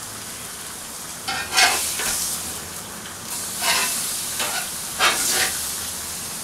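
Steaks sizzling on a hot grill, with about four short, louder bursts of sizzle and metal spatula scraping as each steak is lifted off the grill bars and set back down turned 45 degrees.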